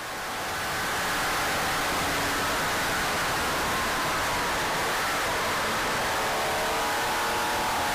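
Cabin noise inside a 1984 Porsche 911 at track speed: a steady hiss of wind and road noise, with the air-cooled flat-six's faint drone running through it. It fades in over the first second.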